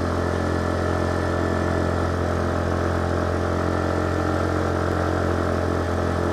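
Motorcycle engine pulling uphill on a steep climb, running at a steady, unchanging speed with a constant low drone.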